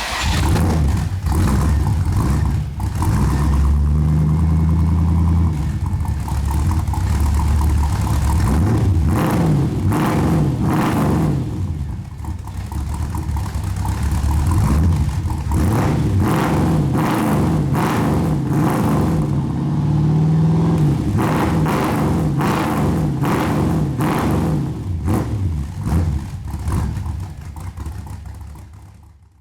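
The Ford Capri's 4.6-litre Rover V8 running through its custom stainless steel exhaust, revved up and down again and again. It fades out near the end.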